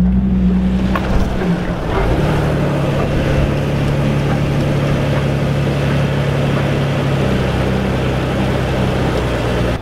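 Jeep engine running steadily as it drives over soft beach sand, a low drone whose note drops a little about two seconds in, with a rush of wind and tyre noise over it.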